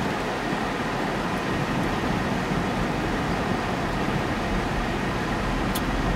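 Steady rush of road and engine noise inside a moving car's cabin, with the heater fan running on full blast. A light tick comes near the end.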